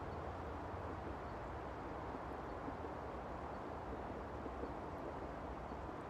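Steady outdoor night ambience: an even hiss over a low rumble, with no distinct events.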